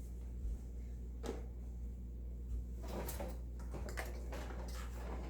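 A few light knocks and clatters of kitchen items and small appliances being handled and set down, over a steady low hum.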